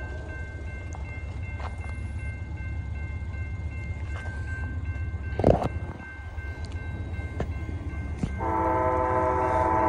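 Railroad grade-crossing bell ringing over a low rumble as the gates lower. About eight and a half seconds in, the oncoming Amtrak locomotive's multi-chime air horn starts sounding, loud and steady. A single sharp knock comes about halfway through.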